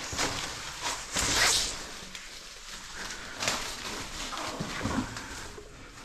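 Rappelling rope and climbing gear scraping and rustling on a descent into a cave pit, with a louder hissing rush of rope about a second in and smaller scrapes after it.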